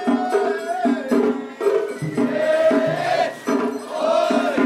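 Traditional festival music at a mikoshi procession: rhythmic group singing or chanting at about two beats a second, with a jingling percussion beat and a long held, wavering voice line over it.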